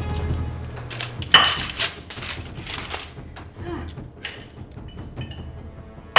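Food being handled on a kitchen counter: a few short, sharp crinkling and crackling sounds, the loudest about a second and a half in, from dry instant ramen noodles crumbled by hand and aluminium foil around a pizza.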